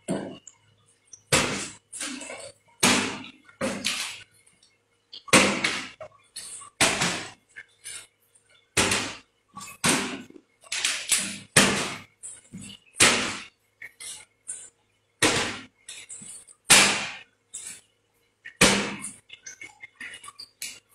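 Rubber slippers slapping, a long irregular run of sharp smacks roughly once a second, some in quick pairs.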